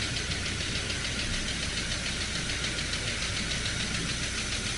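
Car engine idling with one fuel injector unplugged, so that cylinder gets no fuel and the engine runs with a dead misfire. The idle is steady, with a fast, even ticking over it.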